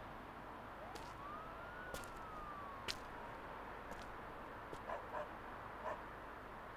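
Faint city street ambience with a distant siren that wails once, rising quickly and then falling slowly. A few sharp clicks sound over it, the loudest about three seconds in.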